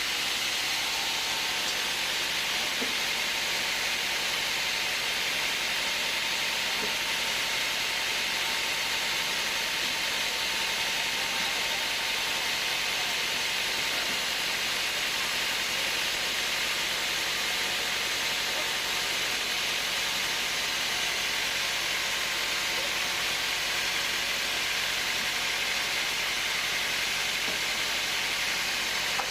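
A steady, even hiss that does not change, with no rhythm or impacts.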